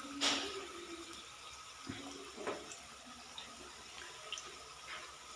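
Papdi dough squares frying gently in hot oil on a low flame: a faint steady sizzle with scattered small pops, briefly louder just after the start as another piece is dropped into the oil.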